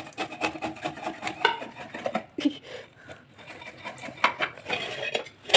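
Irregular knocks and scrapes of a blade hacking at a hard, frozen fish that keeps slipping as it is cut.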